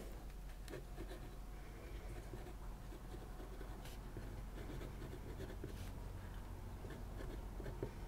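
Kaweco Sport fountain pen with a medium nib writing on a strip of paper: the nib scratches faintly and softly, with the light feedback that comes from the textured desk under the paper.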